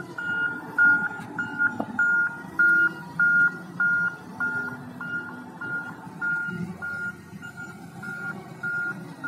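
Wheel loader with a log grapple manoeuvring, its diesel engine running under a reversing alarm that beeps steadily about twice a second. The beeps are loudest in the first half.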